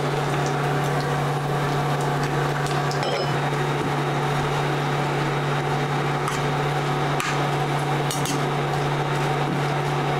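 Oil sizzling around dry coconut slices frying in a steel kadhai, with a metal slotted spoon scraping and clicking against the pan a few times. A steady low electrical hum runs underneath.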